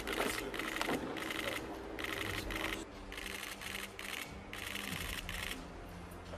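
Camera shutters firing in repeated short bursts of rapid clicking, several bursts one after another, as at a posed handshake. The bursts stop about five and a half seconds in.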